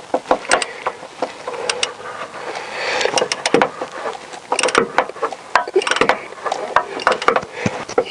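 Socket ratchet clicking in repeated short bursts as it tightens an oil filter housing cap with a 32 mm socket, worked back and forth a small part of a turn at a time.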